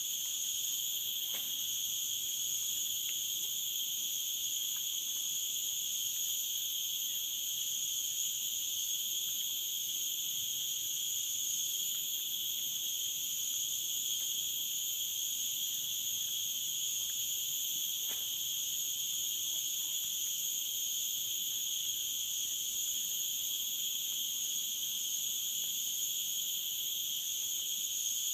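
Steady, unbroken chorus of tropical forest insects, a high continuous drone in several pitches at once, with two faint clicks, one about a second in and one about two-thirds of the way through.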